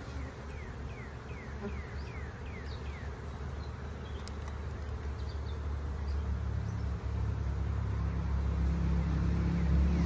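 Honeybees buzzing around an opened hive, a steady low hum that grows louder.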